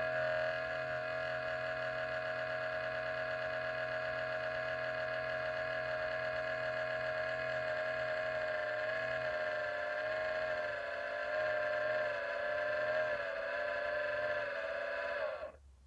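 A computer giving off an abnormal steady whine made of several overtones over a low hum. The pitch wavers slightly in the last few seconds, then the sound cuts off suddenly just before the end.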